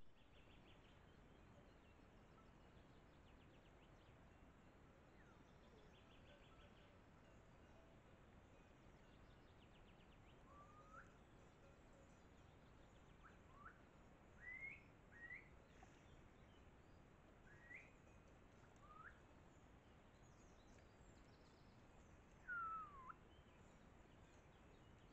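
Near-silent forest background with faint bird calls: short upward-sweeping chirps scattered through the middle, then one longer falling call near the end.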